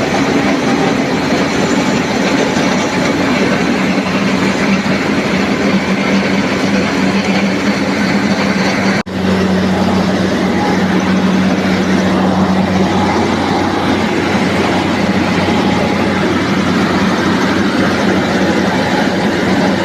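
NG 25D combined rice milling machine running with a steady, loud mechanical din. About nine seconds in the sound drops out for an instant and comes back with a deeper steady hum.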